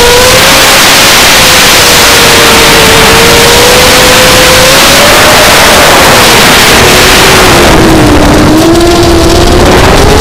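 MB Epic 280 mini H-frame FPV quadcopter on a 5S battery in flight, heard from its onboard camera: a loud motor whine that rises and falls with throttle over a heavy rushing noise from the propellers and the airflow. The pitch sags lower about eight seconds in, then climbs again near the end.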